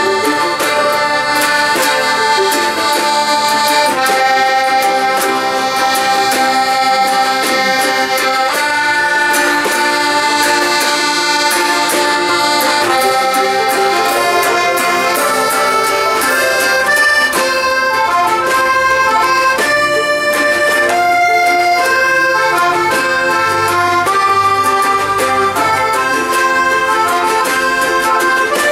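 Folk band playing an instrumental passage, with a squeezebox carrying the melody in held notes that change every second or so.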